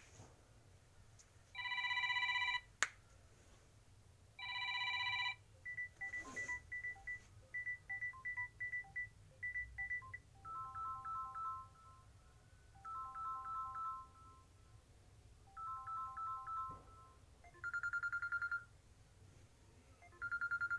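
A series of electronic mobile phone ringtones played one after another. First come two short chord-like beeps, then a run of rapid high-pitched beeps, then repeated groups of two-pitch beeps, and near the end short pulsed single-pitch tones.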